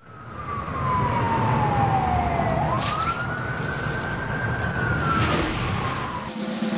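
A siren wailing over a low city traffic rumble. Its pitch falls slowly, then swings back up, holds and slides off near the end. There is a brief whoosh about three seconds in.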